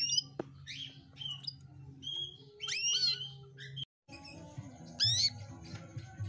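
Female domestic canary calling: separate short chirps and quick upward-sweeping whistles rather than a continuous song, with a brief break about four seconds in. These calls are used to prompt silent male canaries to sing.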